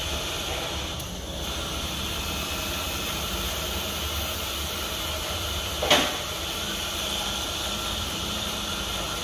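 Steady mechanical hum and hiss, with one brief sharp sound about six seconds in.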